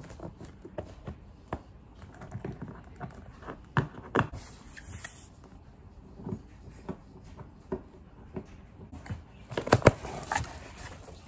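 Scattered light knocks and taps, a few at a time, with a louder cluster of knocks near the end.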